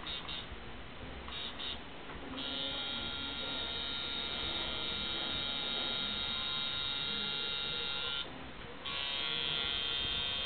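Coil tattoo machine buzzing as the needle works into skin, starting and stopping. A short burst comes just under two seconds in, then a steady run of about six seconds, a brief pause, and the machine runs again near the end.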